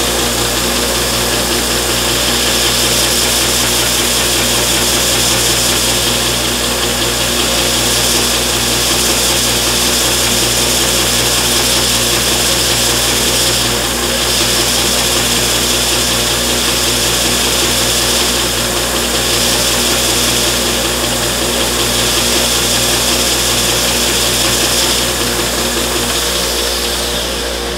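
Belt sander of a swinging-arm fingerboard radius jig running, its abrasive belt sanding a 12-inch radius into a wooden guitar fingerboard, with a dust collector running. A steady motor hum under a loud sanding hiss that swells and eases a little every few seconds as the board is swung across the belt, dropping off right at the end.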